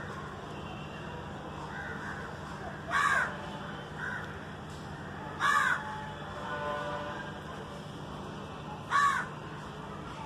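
Crows cawing: three loud single caws a few seconds apart, with fainter caws in between, over a steady low hum.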